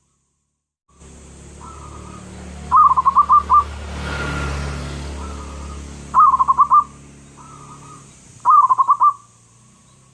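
Zebra dove (perkutut) cooing: three phrases, each a soft opening note followed by a quick run of about five loud ringing coos. A steady low rumble sits underneath.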